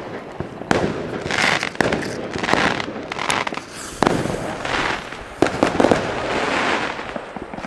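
Lesli Bada Bang Bada Boom firework tube being lit and firing: a series of sharp bangs with hissing between them.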